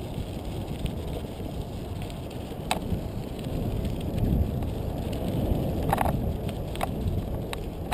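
Mountain bike rolling over a rocky dirt track: a steady rumble of tires on gravel with wind on the microphone, and a few sharp clacks from the bike, one a little under three seconds in and another about six seconds in.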